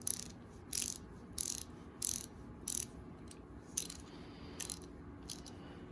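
Freshly rebuilt Craftsman 3/8-inch-drive ratchet wrench, its new greased mechanism being worked back and forth by hand, giving a short burst of ratcheting clicks about every two-thirds of a second. The pawl is catching properly again after the repair.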